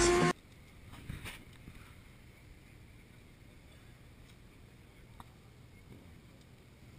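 A loud sound cuts off abruptly right at the start, leaving faint outdoor ambience with light wind on the microphone and a few faint knocks.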